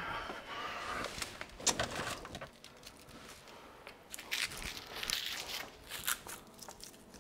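Papery crinkling and rustling with scattered small clicks and taps, from hands handling food or its wrapping.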